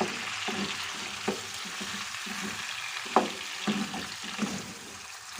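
Chicken wing drumettes and sliced garlic frying in oil in a pan, sizzling steadily, while a utensil stirs them with irregular scrapes and knocks against the pan, the loudest about three seconds in.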